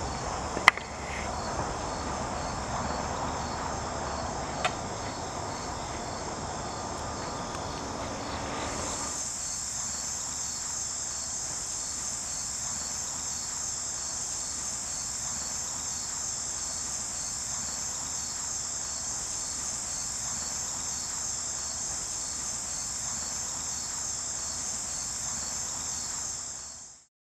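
Steady, high-pitched chorus of chirping insects such as crickets, growing louder about nine seconds in and fading out abruptly near the end. Two sharp clicks come under a second in and about five seconds in.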